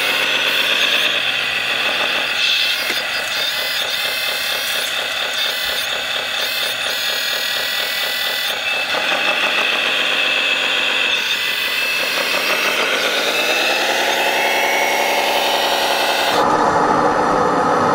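Electric drive of a 1/14-scale RC construction model running, with a whine whose pitch rises and falls several times as it speeds up and slows down. The sound changes abruptly near the end.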